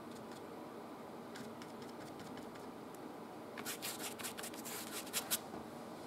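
Oil paintbrush at work. Faint light taps in the first half, then a quick run of sharp, dry scratchy clicks starting a little past halfway, ending in two louder clicks.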